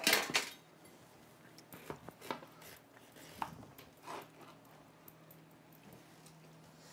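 A knife cutting into a watermelon on a cutting board, giving a few scattered knocks and clicks of kitchen work. A brief louder clatter comes right at the start.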